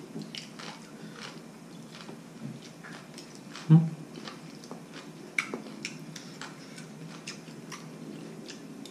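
Metal spoons clicking against ceramic soup bowls and plates, with chewing. One dull knock about four seconds in is the loudest sound.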